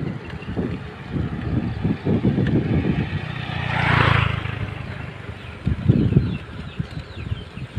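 Road traffic noise heard on the move, with uneven wind buffeting on the microphone throughout. A vehicle swells past about four seconds in.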